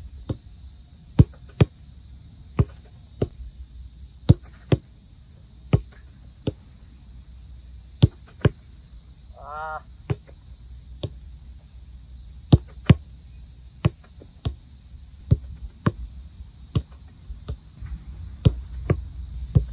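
Football passed back and forth over a long distance and trapped: a string of sharp thuds from kicks and first-touch stops, one every half second to a second and a half.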